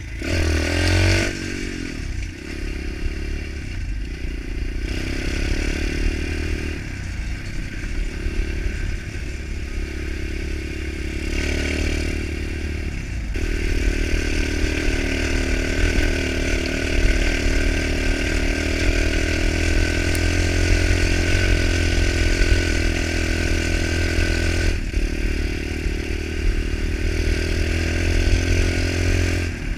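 Pit bike's small single-cylinder engine running under way, its pitch rising and falling as the rider opens and eases the throttle.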